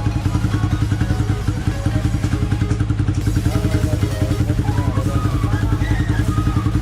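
Motorcycle engine idling through its aftermarket exhaust, a steady, rapid low pulsing.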